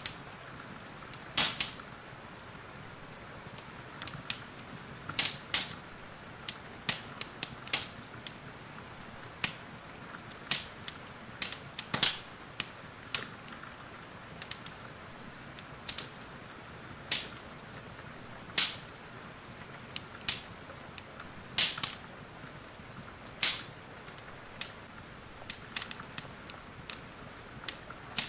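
Wood fire in a fireplace crackling, with irregular sharp pops every second or two, over a steady hiss of rain.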